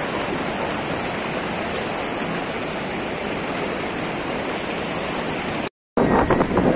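Steady rush of fast-flowing river water around a weir. It cuts off abruptly near the end, and music begins.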